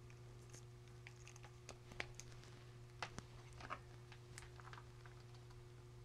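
Near silence: a few faint clicks and taps of cable plugs being handled and pushed into connectors, the clearest about two and three seconds in, over a faint steady hum.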